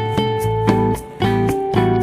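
Music with held notes over a steady beat.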